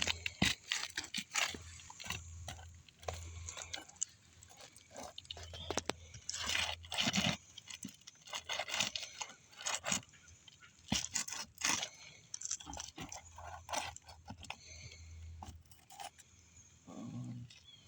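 Asphalt shingles being pried up and nails worked loose with a roof snake shingle removal bar: irregular crunching, crackling and scraping of the brittle shingle, with sharp clicks of the metal bar.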